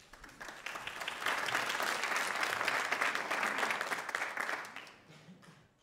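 Studio audience applauding, building up over the first second and dying away near the end.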